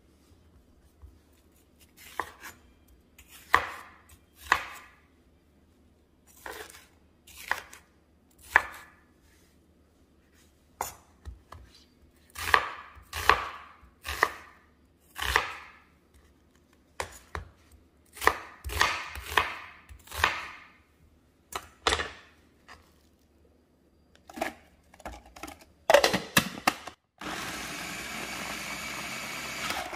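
Chef's knife chopping onion and green bell pepper on a bamboo cutting board, in irregular strikes. Near the end come a few knocks, then a small food processor runs steadily for about two and a half seconds, chopping the vegetables.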